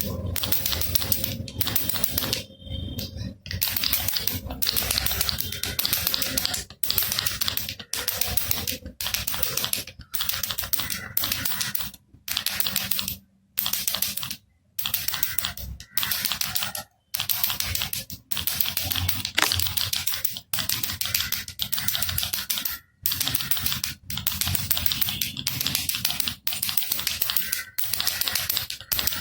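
Baby rattle shaken over and over, a dense clatter of beads in bursts about a second long with brief pauses between.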